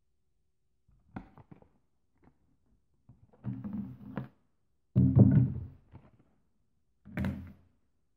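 The Gerber Sport Axe II's hard plastic blade cover being unclipped and handled: four short clusters of hollow plastic knocks and clatters, the loudest about five seconds in.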